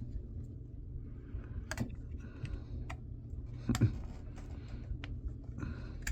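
Small tools and metal parts clicking and ticking as a laptop hard drive is taken apart, with two sharper clicks about two and four seconds in, over a steady low hum.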